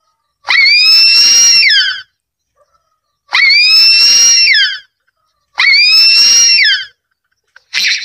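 Harpy eagle calling: three long, high wailing calls of about a second and a half each, each rising slightly and then dropping in pitch at its end, with a short call near the end.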